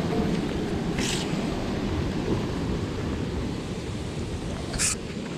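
Wind buffeting the microphone in a steady low rumble. Two short hissing swishes come through it, about a second in and near the end, as a wet rope is hauled up hand over hand through gloved hands.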